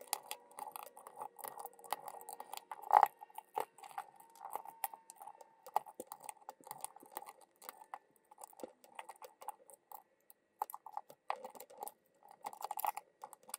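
Hands taking apart the plastic case of a handheld borescope inspection camera: scattered small plastic clicks and taps, with one louder click about three seconds in.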